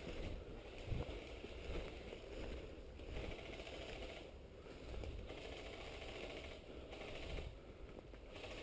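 Rustling and scuffing noise that swells and fades every second or so, with a short dull thump about a second in.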